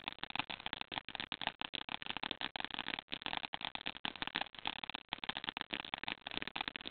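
A garden firework crackling, a dense, irregular run of rapid small pops.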